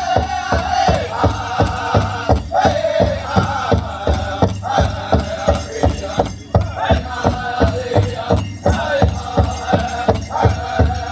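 Powwow drum group singing a Chicken dance song: high-pitched group chant over a big powwow drum struck in a fast, steady beat, about three beats a second.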